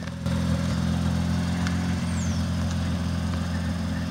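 Mazda RX-7's rotary engine idling steadily, an even low drone.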